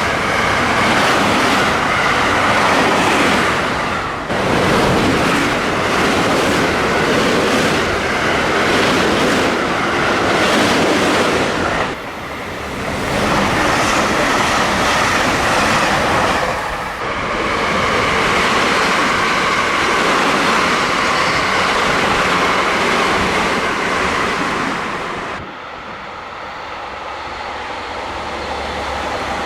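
Trains rushing through a station at high speed without stopping: JR West 223/225-series Special Rapid Service electric trains and a Super Hakuto limited express, each a loud steady rush of wheels on rail with some clickety-clack. The sound cuts abruptly from one passing train to the next four times, and a quieter approaching train builds near the end.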